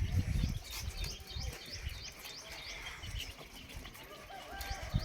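Small birds chirping over and over. A rumble fades out in the first second, and a goat or sheep starts bleating near the end.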